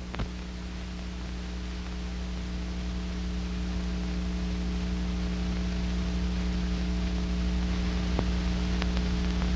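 Steady electrical hum and hiss of an old film or tape soundtrack, slowly growing louder, with a few faint clicks near the start and near the end.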